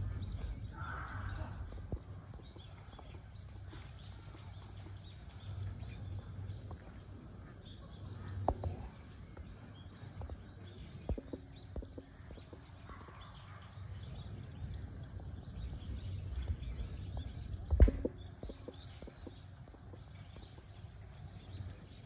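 Outdoor ambience: a steady low rumble with faint, scattered bird chirps. A few sharp knocks break through, the loudest about eighteen seconds in.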